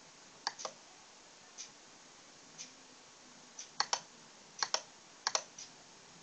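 Sharp mechanical clicks in close pairs, four times, over faint single ticks about once a second.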